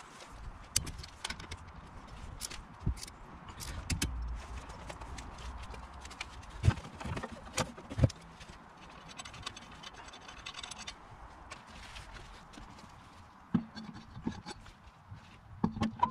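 Hand tools clicking and clinking on metal as a front brake caliper is bolted back on and torqued. There are scattered sharp knocks, with a quick run of ratchet-like clicks around the middle.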